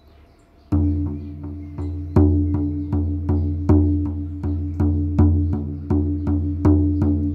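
Shaman frame drum beaten in a steady rhythm, starting just under a second in. It strikes about three times a second, every fourth stroke louder, and each stroke rings on with a deep, booming tone.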